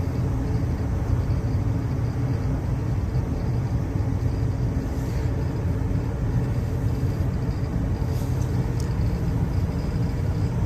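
Gas furnace running with a steady low hum and rumble, its draft inducer motor's capacitor freshly reconnected after a six-flash inducer motor fault code.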